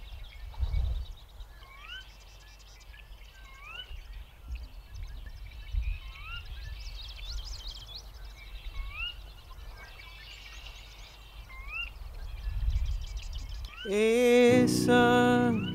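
Rural outdoor ambience: a bird repeats a short rising call every second or two over a low wind rumble. Near the end come two loud, drawn-out low calls, and then music with sustained chords begins.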